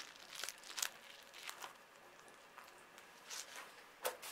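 Faint handling sounds: a few short, soft squishes and rustles as a mesh stress ball filled with water beads is squeezed and handled, then a light knock about four seconds in as toys in a plastic bin are rummaged through.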